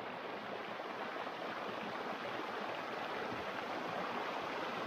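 Shallow, fast-flowing stream water rushing steadily over rocks and around a person crouched in the current.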